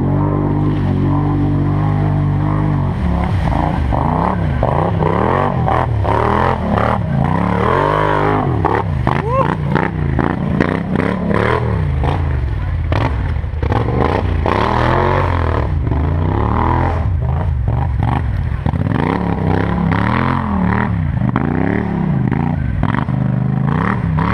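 4x4 ATV engine running, steady for the first few seconds and then rising and falling in pitch again and again as the throttle is opened and closed.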